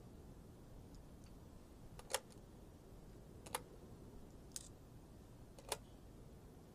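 Four sharp clicks about a second apart: coins being set down one at a time on a wooden barrel top as money is counted out.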